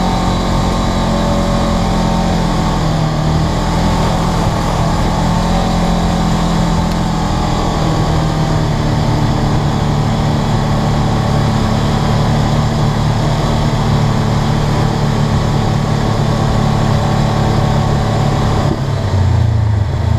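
Polaris RZR 900 side-by-side's parallel-twin engine running steadily as it drives a dirt trail, heard from inside the open cab. Near the end its note drops lower.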